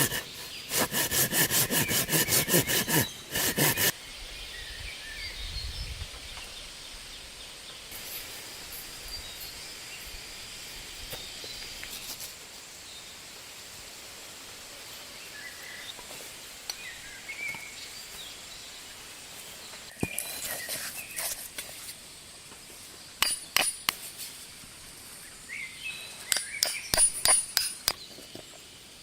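Wood being sawn by hand with fast, even strokes for the first few seconds. Then a quiet outdoor stretch with faint bird calls. Near the end come several bursts of sharp knocks and clicks, like wood being worked or struck.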